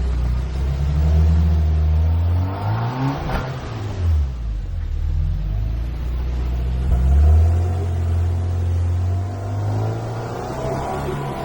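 Jeep engine revving up and down while climbing an off-road trail: the pitch rises and falls a few times a few seconds in, then runs steadier under load.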